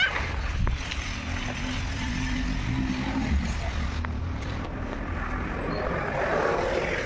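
Dried palm-leaf sheath being dragged along a concrete path with a child sitting in it, making a steady rough scraping with a low rumble that grows louder near the end.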